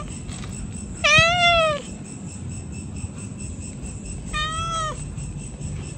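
Domestic cat meowing twice: a loud, drawn-out meow about a second in that rises then falls in pitch, and a shorter, softer meow near the end, over steady low background noise.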